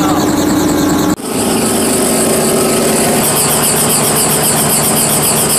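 Helicopter engine and rotor running steadily on the ground. It is heard first from inside the cabin, then, after a sudden cut about a second in, from just outside the open door, where a fast, regular beat of the rotor blades comes through.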